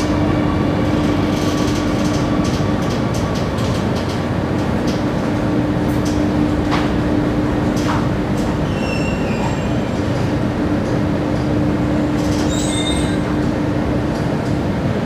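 Cabin noise of a Singapore MRT Circle Line train running through a tunnel and slowing into a station: a steady rumble with a humming tone, and high wheel squeals in the second half as it comes in to the platform.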